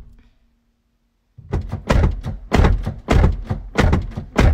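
The tail of a car door slamming shut, then after about a second of quiet a quick run of thuds and rattles from the shut car door, about three knocks a second.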